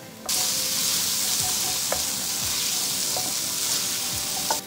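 Chopped tomatoes, onions and turmeric frying in hot oil in a stainless steel sauté pan: a loud steady sizzle that starts suddenly just after the start. A wooden spoon stirs them, with a few light knocks against the pan.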